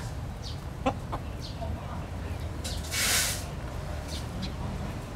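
Chickens foraging in a yard: scattered short high chirps over a steady low rumble, a sharp click about a second in, and a short hiss about three seconds in.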